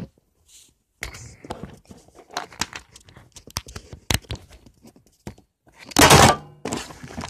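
Handling noise from the camera being picked up and covered: a quick, uneven run of clicks and knocks, then a loud rubbing scrape about six seconds in.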